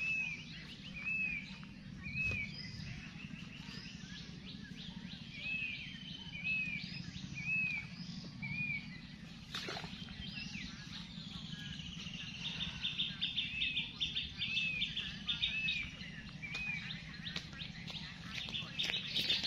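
Birds singing outdoors: one repeats a short arched whistle about once a second in runs of several notes, and from about two-thirds of the way through another bird keeps up a fast, even trill. A steady low hum lies underneath, and there is a single sharp click in the middle.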